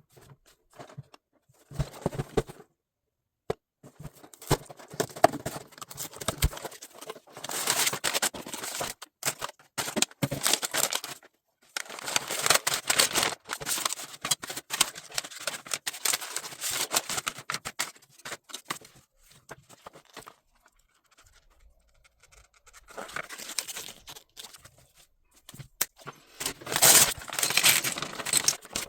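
Packaging of a LEGO set being torn open and handled, with paper or plastic tearing and crinkling in several bursts and scattered sharp clicks between them.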